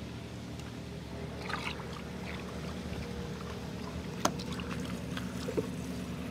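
A motor running steadily with a low, even hum, with a few scattered light clicks and one sharp knock about four seconds in.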